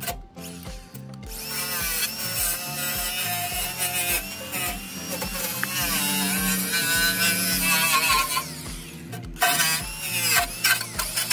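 Background music with a steady beat and a melody, over the whine of an angle grinder cleaning up rusty sill metal. The sound drops out briefly near the start and again about nine seconds in.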